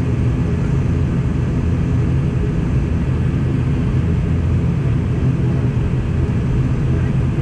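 Airliner engines running at a steady pitch: a loud, even low rumble that neither rises nor falls.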